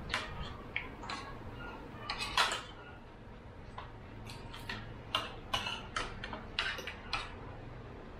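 Spoons and forks clicking and scraping on ceramic plates as several people eat, in irregular light taps, the loudest about two and a half seconds in.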